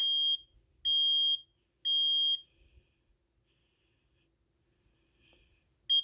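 Kidde combination smoke and carbon monoxide alarm sounding its test: three loud, steady, high-pitched beeps about a second apart, the fire (temporal-three) pattern. A pause of about three seconds follows, then another beep starts right at the end as the carbon monoxide warning begins.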